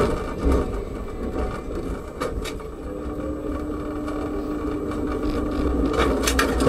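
Tram rolling slowly, heard from inside the driver's cab: a steady low running rumble, with a steady hum from about three seconds in until about six seconds, and a few sharp knocks near the end.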